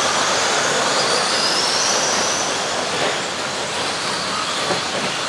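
Several electric RC racing trucks running together on a dirt track: high motor whines rising and falling in pitch over a steady hiss.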